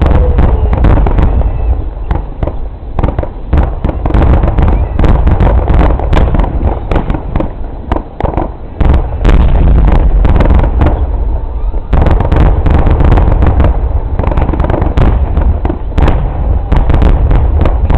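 Fireworks finale: a dense barrage of shell bursts, loud booms and bangs coming in quick succession and overlapping almost without pause.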